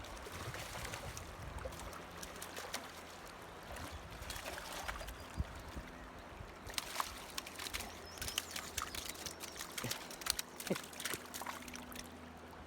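Water splashing and trickling as a hooked fish is brought in on a rod, with a run of quick clicks and knocks in the second half over a faint steady low hum.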